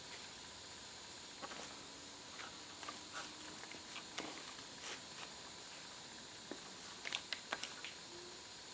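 Faint handling noises as a rubber handlebar grip, slick with WD-40, is slid onto a quad's handlebar: scattered light clicks and rubbing, with a quick cluster of clicks about seven seconds in.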